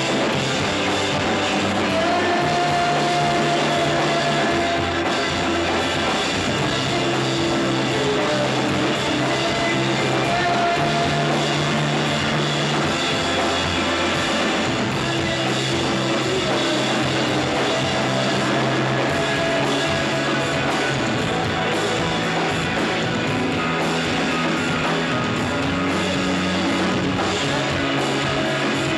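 Shoegaze rock band playing live: electric guitars over bass and drums, with no singing. The bass holds long low notes that change every few seconds under a dense, steady wash of guitar.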